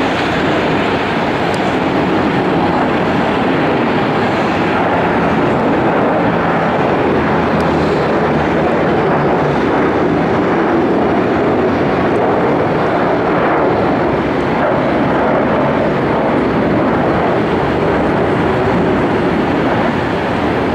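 Boeing 737-500's twin CFM56-3 turbofan engines at takeoff thrust as the jet climbs out, a loud, steady jet noise.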